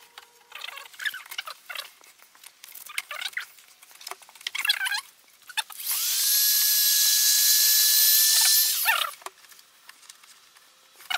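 A plastic razor blade squeaks in short scrapes across a plastic dirt-bike panel, lifting the sticker adhesive. About six seconds in, a small electric power tool runs loudly for about three seconds, its whine rising as it spins up, then cuts off.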